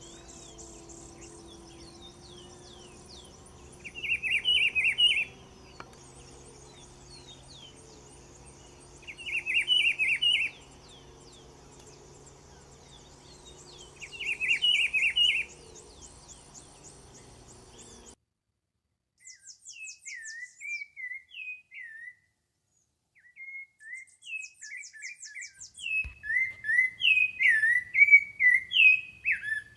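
Wild birds singing, from two separate recordings. First, a short bright phrase repeated about every five seconds over a faint, steady background of other birds. After a sudden cut to silence about two-thirds of the way in, another bird gives a run of short, quick chirps that grow louder toward the end.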